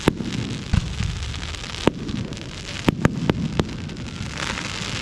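Fireworks going off: irregular sharp bangs, bunched around the middle, over a continuous crackling hiss.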